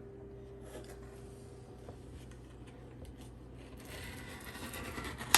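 A knife cutting down through a dessert with a crushed-pretzel crust: faint scraping and crunching grow louder over the last second and a half. A single sharp click near the end, likely the blade meeting the dish.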